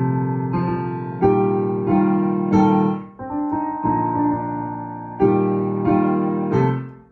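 Digital piano playing sustained chords, a new chord struck about every two-thirds of a second, in two phrases; the sound drops away briefly about three seconds in and again at the end as the keys are released.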